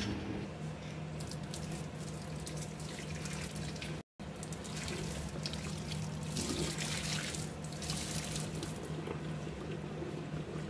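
Freshly boiled water being poured out of a metal water-boiling vessel into a sink, a steady splashing stream. The sound cuts out briefly about four seconds in.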